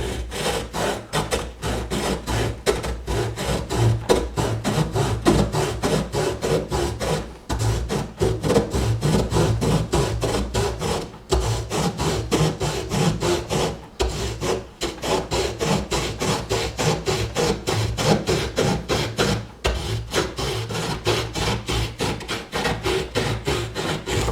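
Victorinox Soldier pocket knife's small wood-saw blade sawing through a tree branch by hand, in quick back-and-forth strokes about three a second, with a few short pauses.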